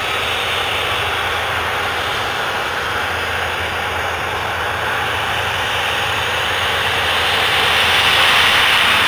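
A Boeing 737's CFM56 turbofan engines running at taxi power as the jet turns onto the runway, a steady jet hiss that grows louder about seven seconds in.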